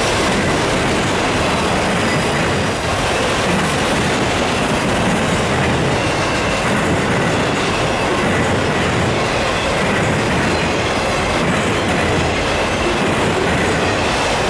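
Autorack freight cars rolling past: a steady, loud noise of steel wheels on rail, with a faint thin high squeal of wheels.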